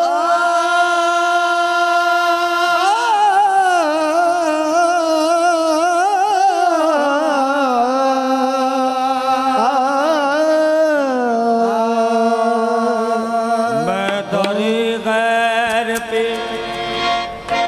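Qawwali singing: an ornamented vocal alaap of long held notes that slide up and down, settling on a lower held note about two-thirds of the way through.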